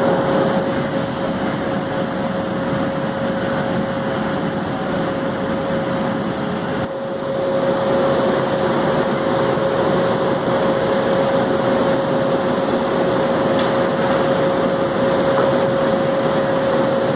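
A WAP7 electric locomotive standing with its cooling blowers running: a steady, loud whirring rush with a constant hum tone.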